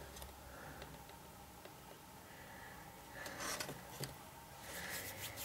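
Faint rustling and light clicks of cut cardboard pieces being handled, coming in short clusters about three seconds in and again near the end.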